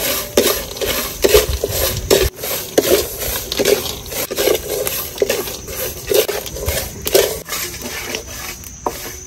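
Wooden spatula stirring raw peanuts and coarse salt around a steel wok, in repeated strokes about one a second: the peanuts and salt grains rattle and scrape over the metal. The peanuts are being dry-roasted in salt.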